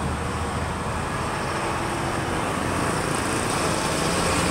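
Road traffic running by: a steady engine hum and road noise.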